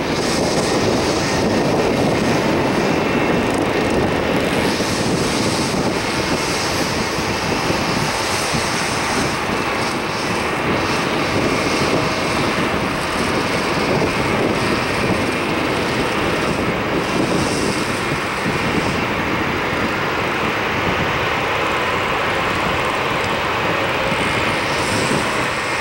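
Boeing 737 airliner's jet engines running steadily as it flies low with its landing gear down.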